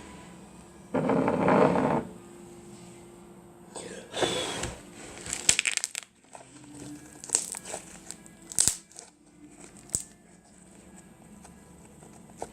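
Glue-and-borax slime being squeezed and worked by hand, making crinkly crackling and popping noises. There is a loud noisy squish about a second in, another near four seconds, then scattered sharp pops.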